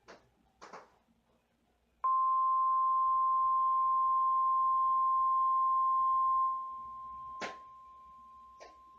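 NOAA Weather Radio warning alarm tone, a single steady 1050 Hz tone, coming in abruptly through the radio's speaker about two seconds in and dropping sharply in volume near the end. It signals an incoming warning broadcast, here a test tornado warning. A few short clicks come before and after it.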